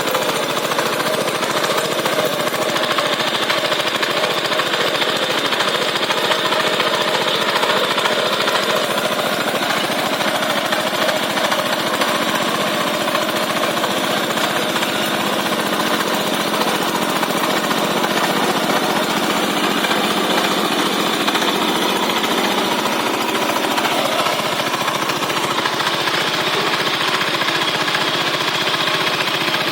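Ploughing machine's engine running steadily, with a rapid hammering beat.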